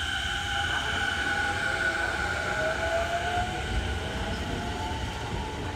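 Toei Shinjuku Line electric train pulling out of the station. Its motor whine rises in pitch as it picks up speed, over a steady low rumble of wheels on the rails.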